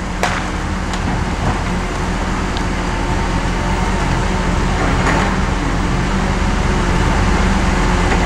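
Tigercat 234B log loader's diesel engine running steadily under load as the boom and grapple swing a tree, with a few sharp knocks, the loudest just after the start.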